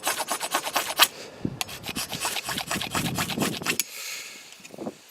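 Stainless-steel machete blade scraped rapidly along a cheap ferrocerium rod, throwing sparks: quick rasping strokes, several a second, with a short pause about a second in. The strokes stop at about four seconds.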